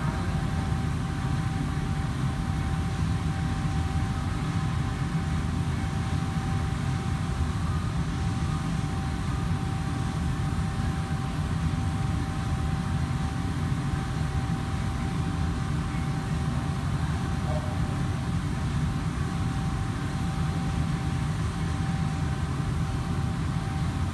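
Steady low rumble with a constant mid-pitched hum above it, the even drone of running machinery or ventilation.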